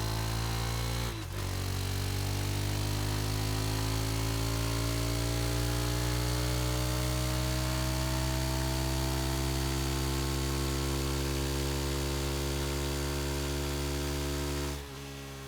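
A Suzuki DR-Z dual-sport's single-cylinder engine running at idle, its speed creeping up slightly and then holding steady. It cuts off abruptly shortly before the end, leaving a low hum.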